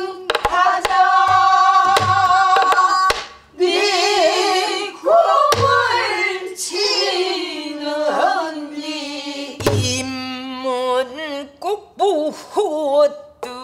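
A woman singing a Korean folk song in a full, heavily wavering voice, first holding one long note and then bending and sliding between notes. She accompanies herself with a few sparse stick strokes on a buk barrel drum.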